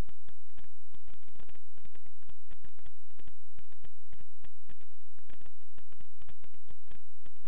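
Dense, irregular crackling clicks over a steady low hum, with no music or voice.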